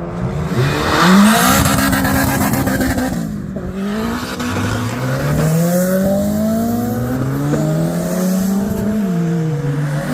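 A Honda DOHC VTEC four-cylinder is revved hard as the car pulls away. The engine note climbs through a gear, falls at the shift about three seconds in, then rises in one long pull before dropping again near the end.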